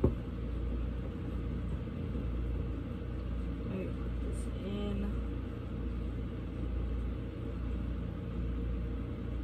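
A steady low rumble with a single sharp click right at the start, as small tripod parts are handled and fitted together.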